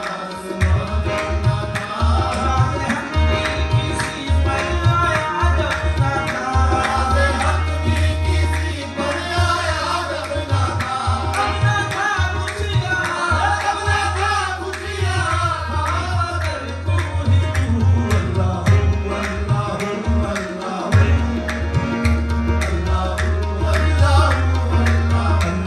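Qawwali music: tabla drumming with a deep, booming bass drum stroke under a bending melodic line, with singing.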